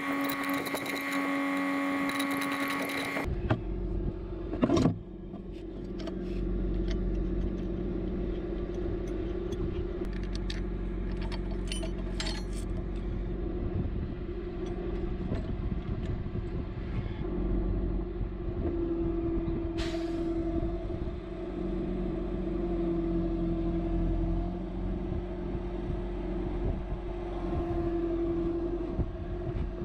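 Bucket truck's engine running steadily to power the boom hydraulics. A brighter whine in the first three seconds comes as the bucket's control handle is worked. A few sharp metal clicks and knocks come about five seconds in, around eleven to twelve seconds, and once near twenty seconds.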